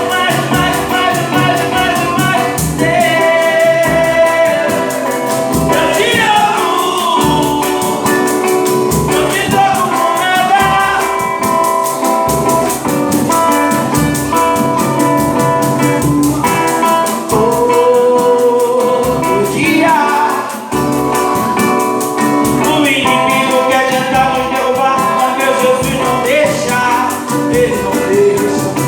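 Gospel song performed live: a singer's voice over guitar and a steady beat.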